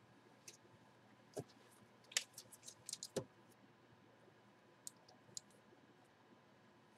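Faint, scattered clicks and taps, with a quick run of them a little before the middle and a couple more later.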